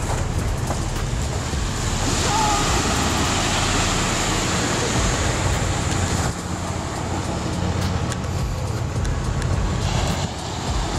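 Steady rushing noise of wind on the microphone, with small waves washing onto a sandy beach.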